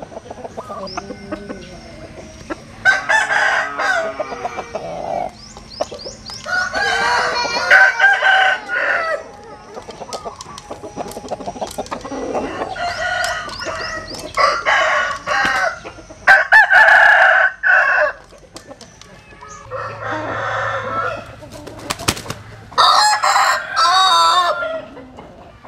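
Roosters crowing again and again, about seven crows of one to two seconds each with short gaps between, some in different voices.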